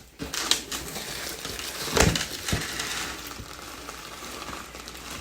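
Plastic trash bag rustling and crinkling as it is handled and fitted into a kitchen trash can, with a sharp knock about two seconds in.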